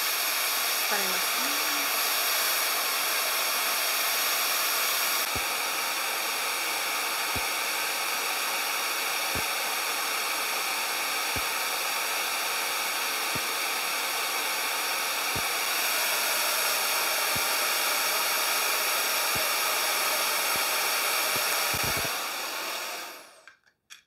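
MelodySusie hair dryer with its diffuser attachment running on the lowest heat setting: a steady rush of air with a motor whine of several high tones. Faint low ticks come about every two seconds. The dryer is switched off near the end and winds down.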